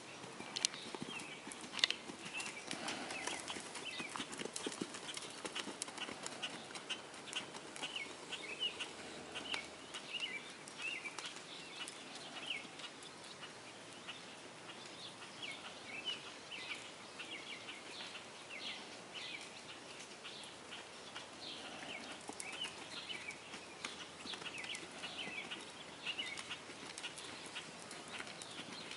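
Hoofbeats of a Quarter Horse gelding moving under a rider on soft arena sand, with a steady run of short, high chirps throughout.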